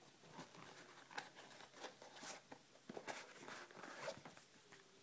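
Faint scattered rustles and scrapes of an insole being pulled out of an Adidas F50 adizero leather football boot.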